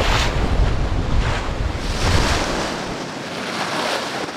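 Wind buffeting the microphone over the rush of sea water past the bow of a sailboat under way. The low wind rumble drops away about three seconds in, leaving the steady hiss of the water.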